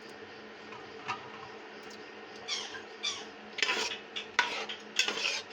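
Metal spoon clinking and scraping against a cooking pot while meatballs in gravy are stirred. A few scattered knocks at first, then a busier run of clinks over the last few seconds.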